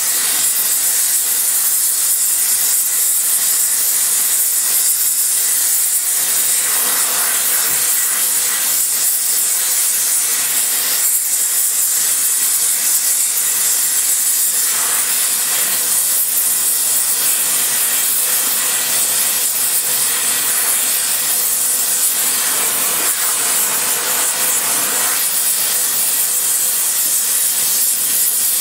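Spray welding torch flame hissing steadily as it heats a cast iron cylinder head's combustion chamber to cherry red for spray welding. The hiss swells briefly several times.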